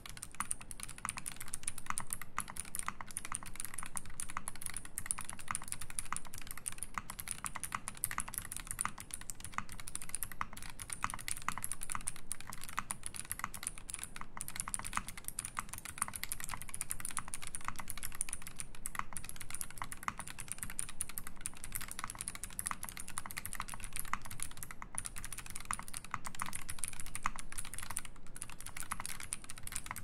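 Continuous typing on a Medicine 60 custom mechanical keyboard fitted with Krytox-lubed Zealistotle switches in a PVD brass plate: a steady, dense stream of keystroke clacks with no pauses.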